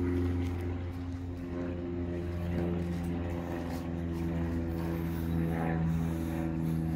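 An engine running steadily, a low droning hum whose pitch shifts slightly about two seconds in.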